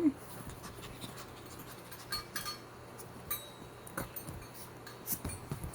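A Pomeranian puppy moving about and being handled: a few scattered small clicks and scuffs.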